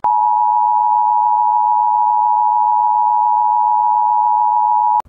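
Steady electronic test tone, the single beep behind a TV 'technical difficulties' test-pattern card, held at one pitch near 1 kHz. It starts and cuts off abruptly after about five seconds.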